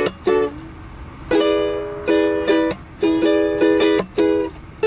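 Kala ebony tenor ukulele strummed in a funky pattern of down, down, up, mute, up. The strummed chords are broken by short, sharp muted chops where the strings are damped.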